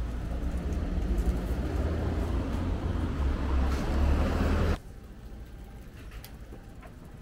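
Street traffic: a motor vehicle passing close by, a loud low rumble with rising noise, which cuts off abruptly about two-thirds of the way through. Faint street sound remains after it.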